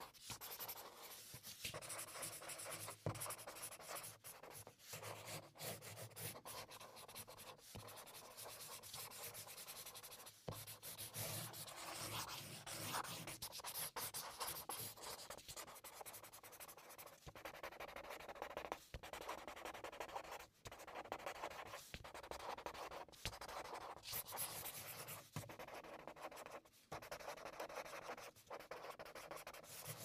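Felt-tip marker writing quickly: a steady run of scratchy strokes with short pauses between them and an occasional sharp tap.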